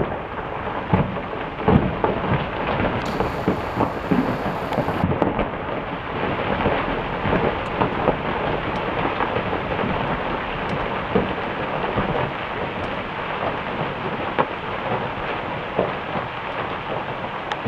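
Rockfall down a mountain face: a continuous rumble with many sharp cracks and clatters of rocks striking, most frequent in the first several seconds.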